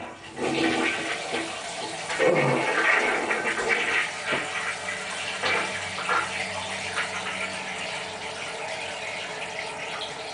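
Toilet flushing: a rush of water into the bowl, loudest in the first few seconds, then settling into a steadier, quieter swirl as it drains and refills. A few short knocks sound in the first half.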